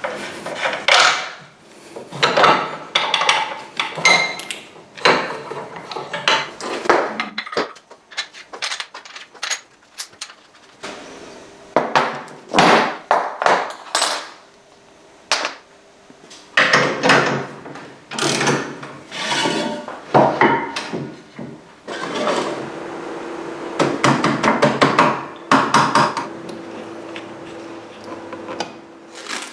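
Hand tools working on motorcycle parts: irregular knocks, clanks and scrapes of metal tools, with a low steady hum in the last few seconds.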